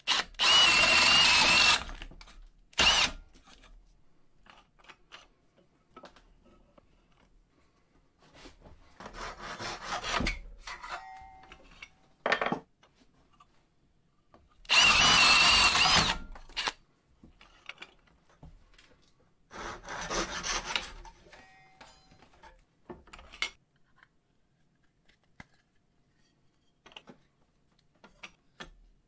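Cordless drill boring into a wooden board with a Forstner bit, in several bursts of one to two seconds; the loudest come at the start and about halfway, with a motor whine that wavers in pitch. Only faint clicks of handling in the last few seconds.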